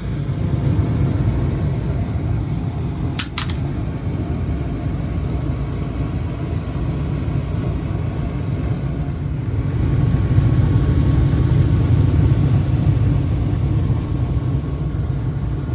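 1997 gas furnace firing, its burners lit by hand with a lighter in place of a cracked hot surface igniter: a loud, steady low rumble that swells louder partway through, with two sharp clicks about three seconds in. The furnace sounds terrible, bad enough to need replacing.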